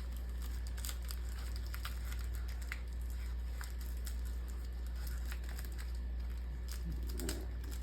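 Light paper rustling and small ticks as a printed paper wrapper is folded and pressed into place by hand, over a steady low hum.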